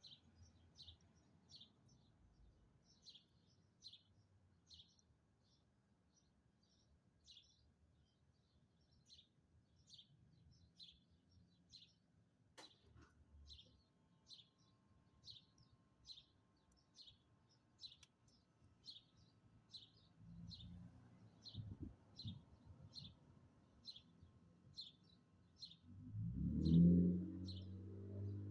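A bird repeating one short, high, down-sweeping chirp a little more than once a second, on and on. A single sharp click comes about halfway through, and near the end a louder low hum swells in.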